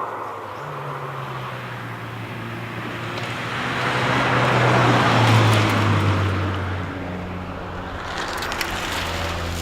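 Toyota Celica GT-Four's turbocharged 3S-GTE four-cylinder engine running steadily, with rushing road and tyre noise that swells to its loudest about halfway through and then eases. A scatter of light clicks comes near the end.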